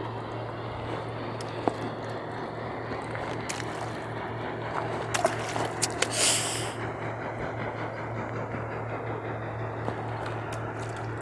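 A steady low engine hum under a haze of background noise, with a few sharp clicks and a short burst of hiss about six seconds in.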